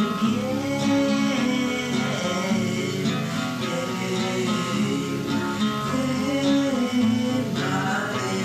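Background music: a song with plucked acoustic guitar and a singing voice.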